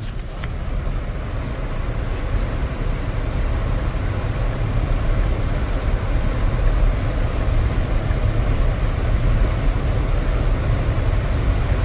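Strong storm wind blowing: a steady, loud rushing noise with a deep rumble underneath.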